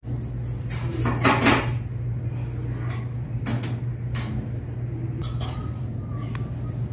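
Gym equipment clanking and knocking over a steady low hum, with a louder clatter about a second in.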